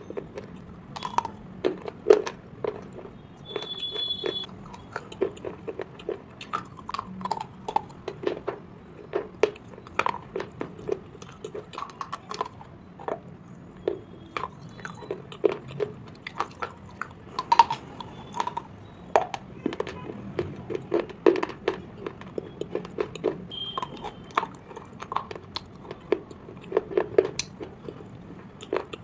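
Slate pencil pieces being chewed: irregular sharp crunches and clicks, a few a second.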